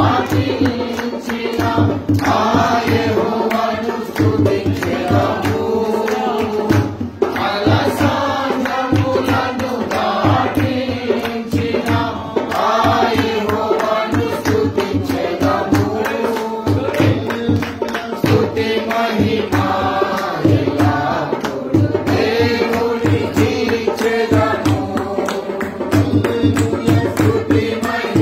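Christian worship singing led by a man on a microphone, with the group singing along over a steady low drum beat.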